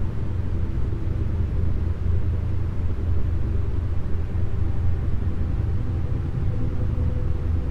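Meditation soundtrack: a low, rapidly pulsing isochronic tone with faint held synth chords above it.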